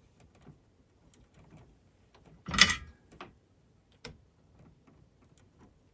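Faint small clicks and taps of tool work on a circuit board, with one short hiss about two and a half seconds in from a desoldering gun's vacuum pump sucking solder out of a joint.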